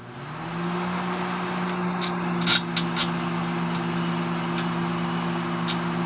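Microwave oven switching on and running with a steady electrical hum. Scattered sharp snaps sound over it, most around two to three seconds in, as the dead 6SA7 vacuum tube inside starts to arc and glow.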